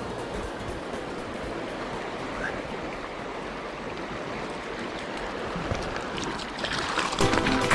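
River water flowing with a steady rushing sound; music comes back in near the end.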